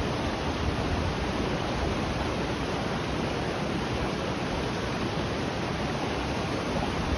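Waterfall: a steady rush of falling water, with a rumble underneath.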